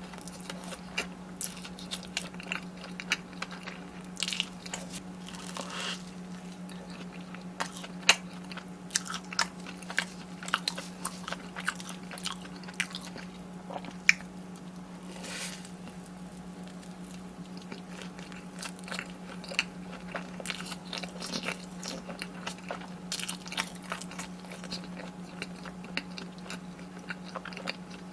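Close-miked eating: a person biting into and chewing crunchy battered, deep-fried food, with irregular crisp crunches and wet chewing throughout. A steady low hum sits underneath.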